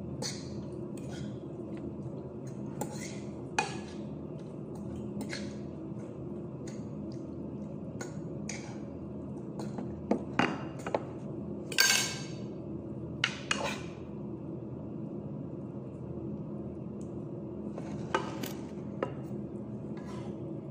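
A cooking utensil scraping and knocking against a large pan as food is stirred, with irregular clinks that come thickest and loudest in the middle, over a steady low hum.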